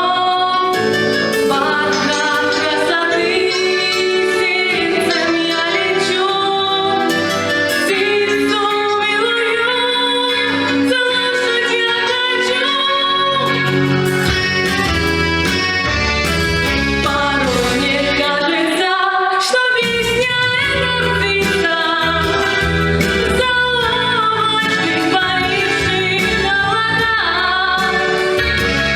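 A woman singing a pop song over a backing track, with bass and beat coming in about halfway through.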